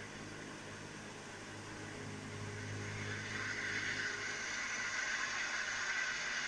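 Hiss played through the speaker of a repaired car head unit, growing steadily louder as the volume is turned up and cutting off suddenly near the end; the unit no longer drops out at high volume now that its audio IC has been replaced.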